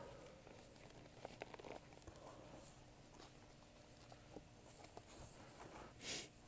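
Quiet handling of gift packaging: faint clicks and small rustles of a small retail box being turned and opened, with a short hissing burst about six seconds in.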